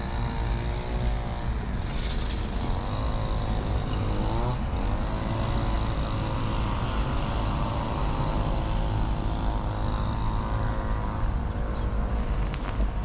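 A motor vehicle's engine is heard close by over steady low wind and road rumble on the microphone of a moving bicycle. Its pitch drops about a second in and climbs again around four seconds in.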